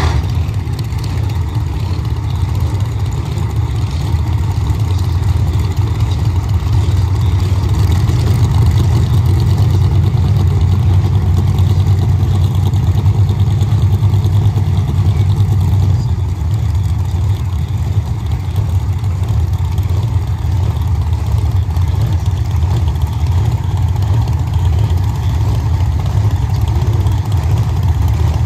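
Car engine idling with a steady low rumble, holding an even level with no revving.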